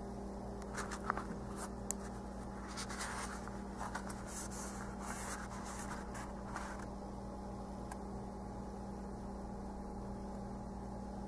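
Paper notebook pages being handled and turned: a few sharp clicks and paper rustles over the first several seconds, then quieter. A steady low hum sits underneath.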